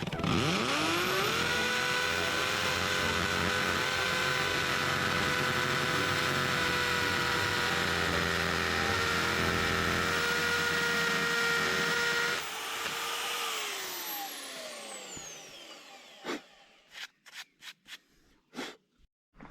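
Electric power tool spinning up and running at a steady whine for about twelve seconds, then switched off and winding down in falling pitch. A few sharp clicks follow near the end.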